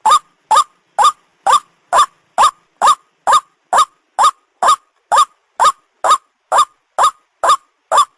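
White-breasted waterhen (ruak-ruak) call played as a hunting lure: short, sharply rising calls repeated about twice a second at an even pace, with silence between them.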